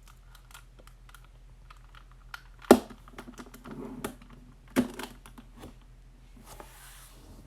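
Plastic clicks and rattles of a 3x3 Rubik's Cube being handled, with two sharper knocks a little under three seconds and about five seconds in.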